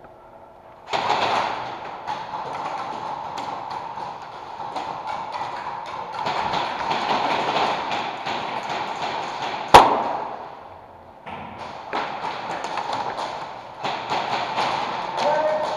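Airsoft fire with BBs tapping and clicking against plywood barricades in quick, uneven runs. A single sharp crack, the loudest sound, comes just before a brief lull about ten seconds in, and then the tapping resumes.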